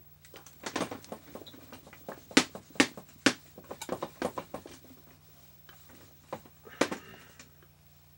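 A whiteboard being wiped clean with an eraser: irregular rubbing strokes and sharp knocks against the board, over a steady low hum.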